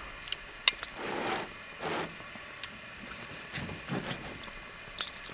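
Metal kitchen tongs clicking a few times, then soft rustling and scraping as a grilled steak is lifted and turned over on paper.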